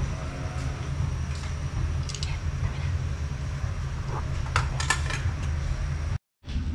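Cooking at a pot: light clicks and clinks of ingredients and a utensil against the pot, around two seconds in and again near five seconds, over a steady low rumble. The sound cuts out briefly near the end.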